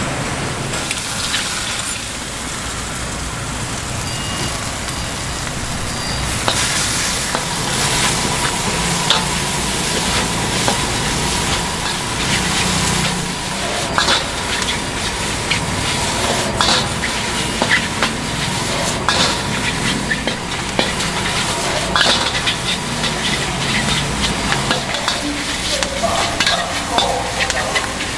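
Food sizzling and frying in a hot pan while a metal utensil stirs it, with frequent clinks and scrapes from about six seconds in.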